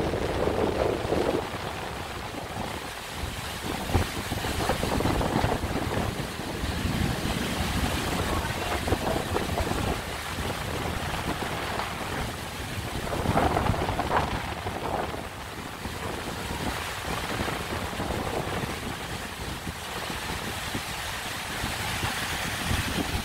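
Heavy downpour: rain pouring steadily, with wind buffeting the microphone in gusts that rise and fall.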